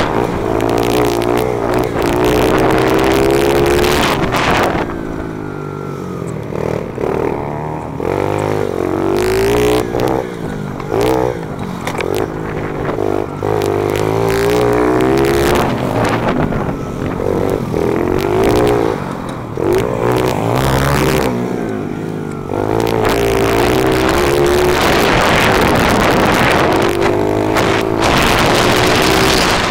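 Small single-cylinder four-stroke engine of a CRF50-based pit bike with an FMF pipe, ridden hard, with wind rush on the microphone. It is held at high revs for the first few seconds and again for the last several seconds. In between, the revs drop and climb again and again.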